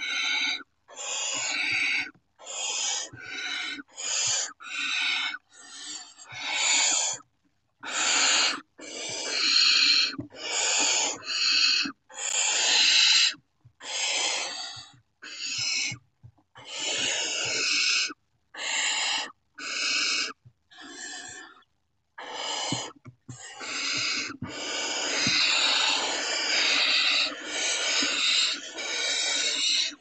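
Barn owl chicks giving harsh, rasping hiss calls, the food-begging 'snoring' of nestlings, one after another with short gaps between them, running together into almost unbroken hissing over the last few seconds.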